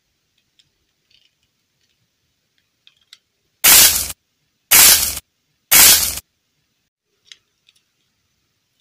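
Three loud cracking noises, each about half a second long and about a second apart, an added cracking sound effect laid over the clay shell being squeezed and broken off the doll's head. A few faint handling clicks come before and after them.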